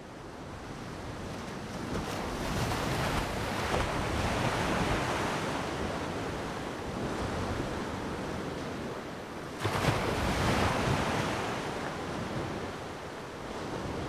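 Rough sea surf breaking and washing over coastal rocks in high wind, with wind buffeting the microphone. The sound swells up over the first two seconds, rises and falls in slow surges, and a sudden louder surge comes about ten seconds in.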